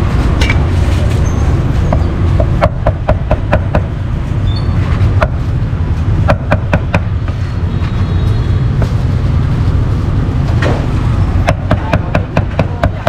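Cleaver chopping meat on a cutting board in quick runs of sharp knocks, about four strokes a second, in three bursts, over a steady low rumble.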